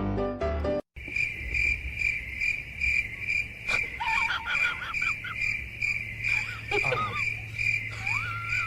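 Cricket chirping in an even rhythm of about three chirps a second, over a low steady hum, with a few faint wavering whistle-like calls later on. It follows piano music that cuts off about a second in.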